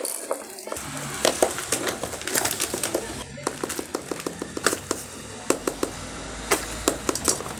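Sharp clicks and taps of small plastic fidget toys being handled, with a quick run of clicks about four to five and a half seconds in.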